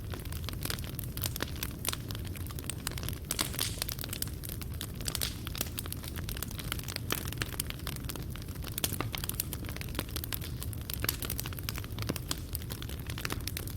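Fireplace fire burning, with a low steady rumble of the flames and frequent irregular crackles and pops of burning wood and coals.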